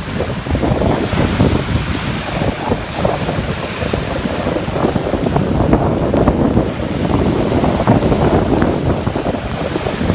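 Caspian Sea waves washing and breaking, with wind buffeting the microphone; a steady churning wash with crackling spikes and no pauses.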